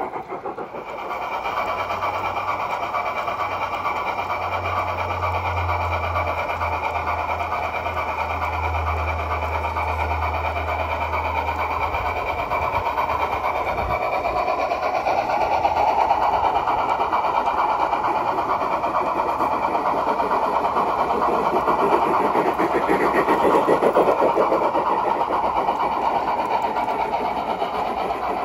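Large-scale Bachmann narrow-gauge model steam locomotives and their cars rolling along garden railway track: a steady, fast rattle of metal wheels on rail with a low motor hum in the first half, growing louder for a while as a train passes close.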